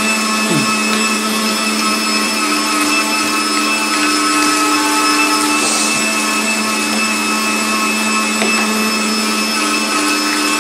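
Electric meat grinder running with a steady hum, mincing raw carrot pressed down its feed tube with the pusher and forced through the medium plate.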